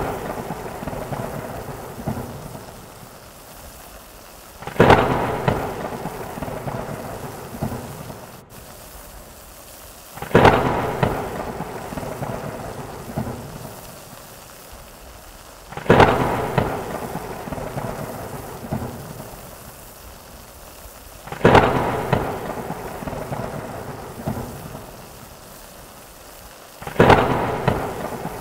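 Thunderstorm sound: five sudden thunder cracks at even spacing, about every five and a half seconds, each rumbling away over a few seconds, over steady rain.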